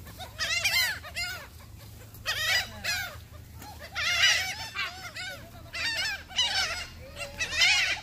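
A flock of laughing gulls calling, short arched cries overlapping in bursts every second or two.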